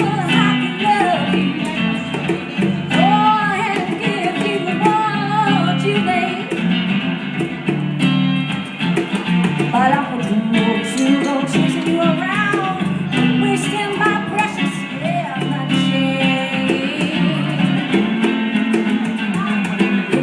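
Live blues band playing an instrumental break: a lead guitar winds through bent, gliding notes over a steady bass line and rhythm backing.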